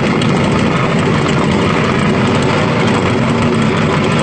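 Racing powerboat outboard engine idling steadily.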